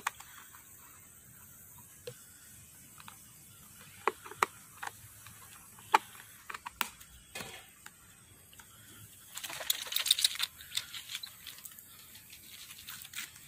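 Scattered light plastic clicks from a pressure washer's shampoo bottle attachment being handled while its black nozzle cap is twisted onto the plastic bottle, with a short scraping rustle about two-thirds of the way through.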